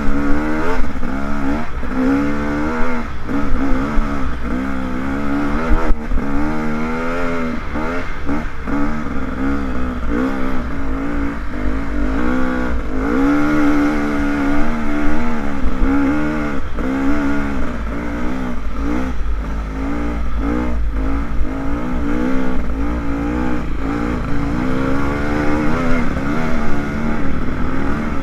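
Dirt bike engine revving hard, its pitch climbing and dropping again and again as the rider works through the gears on a sandy uphill trail, with the odd knock from the bike over the rough ground.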